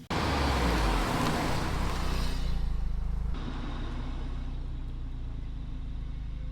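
Car running: a loud rushing noise over a low engine hum for about the first three seconds, then cutting off sharply to leave the engine hum alone, steady.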